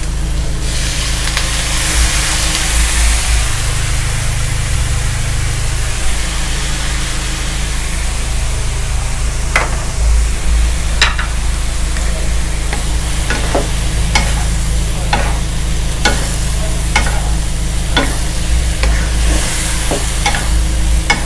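Mushrooms sizzling in a hot wok over a low steady hum, the hiss louder for the first few seconds. From about ten seconds in, a wooden spatula scrapes and knocks against the pan as the mushrooms are stirred, in a run of sharp clicks.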